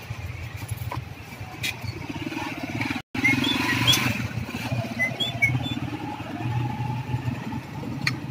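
A motorcycle engine idling steadily in the background, with a few light metallic clicks from hand tools and a few short high chirps. The sound drops out for a moment about three seconds in and comes back a little louder.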